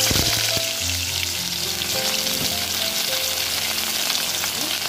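A slice of bhola fish frying in hot mustard oil in a steel kadai: a steady, dense sizzle from the freshly added fish, loudest in the first moment.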